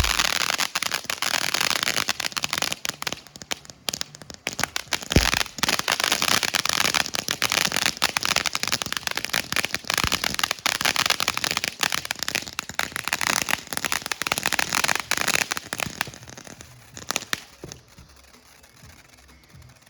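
Consumer fireworks crackling: a dense run of rapid pops and crackles, with one louder bang about five seconds in. It dies away into a few scattered pops near the end.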